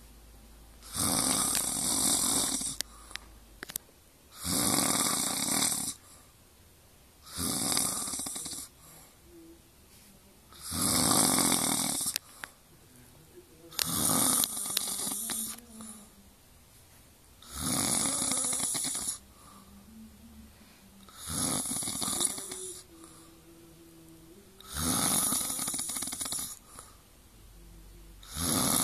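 Heavy snoring in a slow, even rhythm: about one long snore every three and a half seconds, each lasting over a second, with quiet breathing pauses between.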